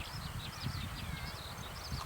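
Zitting cisticola giving its call notes: a rapid run of short, high chips, several a second, with a low rumble underneath.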